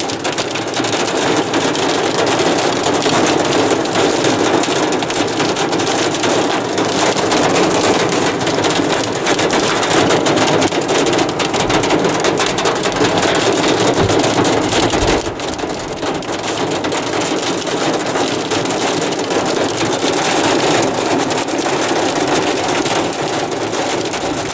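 Heavy rain mixed with hail drumming on a car's roof and windscreen, heard from inside the car as a dense, steady pelting of many small impacts. It eases slightly about halfway through.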